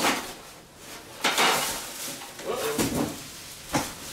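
Packaging being handled: plastic wrap rustling and crinkling as styrofoam and cardboard are pulled about, in a few short bursts.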